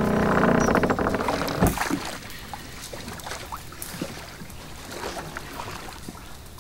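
A loud, low rattling buzz in a film's soundtrack swells, then ends with a single heavy thud about two seconds in. Quieter scattered knocks and creaks follow.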